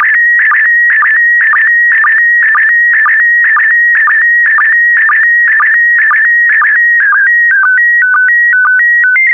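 PD120 slow-scan TV (SSTV) image signal: a warbling tone near 2 kHz broken by a short lower sync pulse about twice a second, the closing scan lines of an image. Near the end the pattern changes to a few stepped tones, then a steady high tone.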